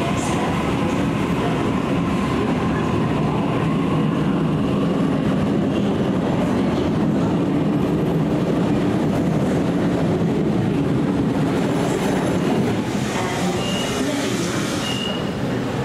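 Sydney Trains Waratah double-deck electric train pulling out of the platform, a steady rumble of wheels and running gear as the carriages roll past. A few short high tones sound near the end.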